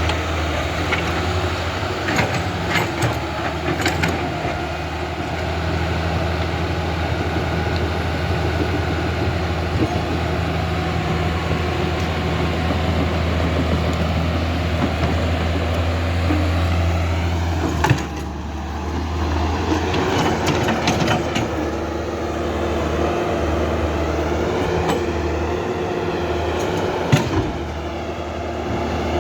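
Small electric motors and gearboxes of a radio-controlled toy excavator and bulldozer whirring steadily, with a few sharp clicks and knocks.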